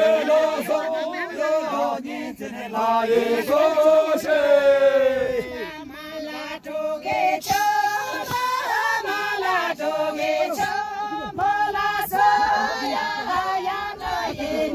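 A group of men and women singing a song together in unison, unaccompanied.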